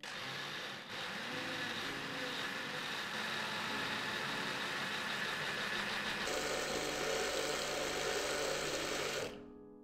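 Countertop blender motor running at speed, grinding soaked rice and water into a smooth batter. The sound changes and grows brighter about two-thirds of the way through, then stops shortly before the end.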